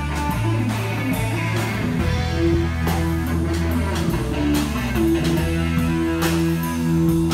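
Guitar-led rock music with bass notes and drum hits.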